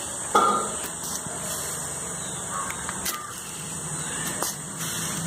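A cat growling low and steady while crouched facing a lizard, with a brief louder outburst about half a second in.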